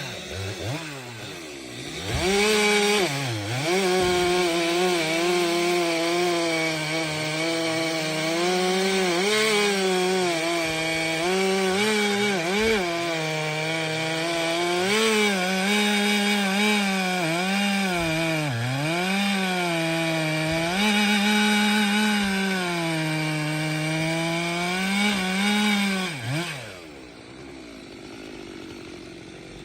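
STIHL MS 462 C-M two-stroke chainsaw cutting firewood at full throttle, its pitch dipping each time the chain bites into the wood and recovering. Near the end it drops back to a quieter idle.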